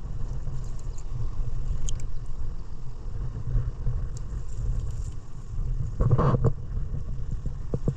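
Low, fluctuating rumble of outdoor wind buffeting the microphone, with a brief voice-like sound about six seconds in.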